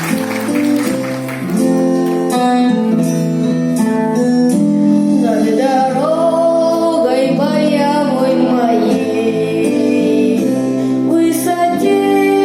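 Song performance: a sustained instrumental introduction with held chords, then singing voices come in about halfway through and carry a wavering, vibrato melody over the accompaniment.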